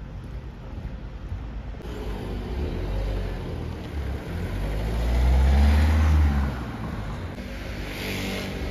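A car driving past close by: its engine note and tyre noise swell up, loudest about five to six seconds in, then fade away.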